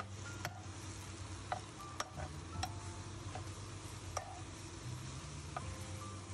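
A metal spatula stirring and scraping chillies, tomato, onion and garlic in a dry wok, with sharp knocks against the pan every second or so. Beneath it is a light sizzle of the vegetables charring without oil.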